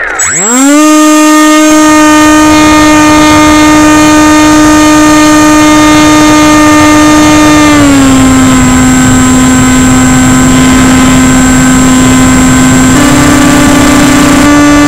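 Electric motor and propeller of an AXN RC plane, heard close from an onboard camera: the whine climbs quickly to full throttle just after the start and holds a steady pitch. It drops slightly about eight seconds in and steps back up near the end.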